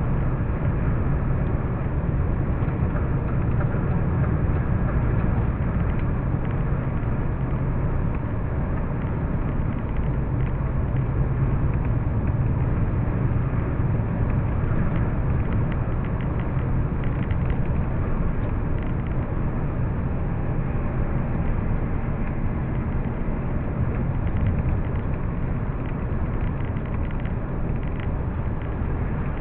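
Steady drone of a vehicle cruising at highway speed, heard from inside the cabin: engine and tyre rumble with most of the weight in the low end, even and unbroken.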